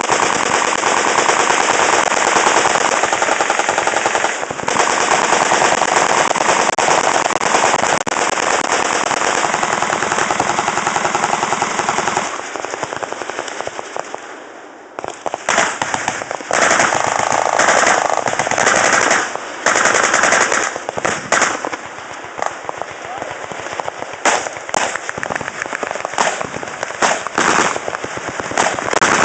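Machine-gun fire in long, dense volleys of rapid shots. About twelve seconds in the firing thins out and nearly stops for a couple of seconds, then picks up again in shorter bursts that start and stop.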